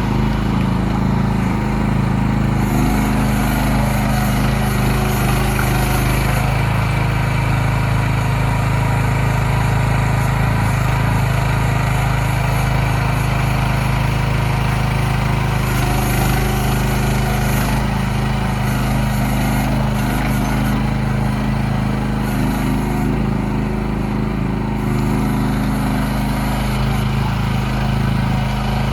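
Engine of a CFG MX15RX mini excavator running steadily, with a higher hiss that comes and goes a few times.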